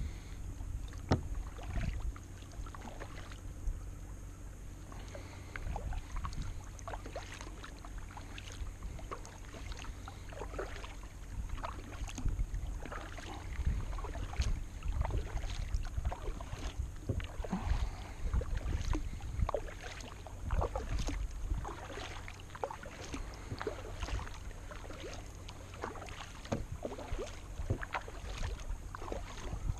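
Double-bladed kayak paddle dipping into and pulling through calm river water, stroke after stroke, with irregular splashes and drips from the blades over a steady low rumble.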